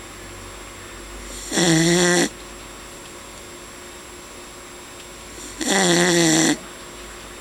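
Sleeping dog snoring really loudly: two long, pitched snores about four seconds apart, each lasting under a second.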